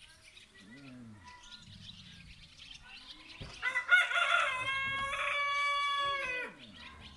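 A rooster crows once about halfway through: a single long call that holds its pitch, then falls away at the end. Fainter bird chirps come before it.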